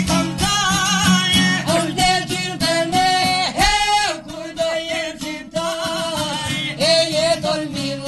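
Albanian folk song: a man singing a wavering, ornamented melody over plucked çifteli and sharki lutes, with a steady low drone underneath.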